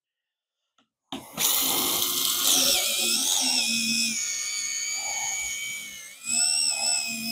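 Slot car's small electric motor whining at high speed, spinning its rear urethane tires against sandpaper to scuff and true them. It starts with a click about a second in, wavers in pitch under load, dips briefly near six seconds and picks up again.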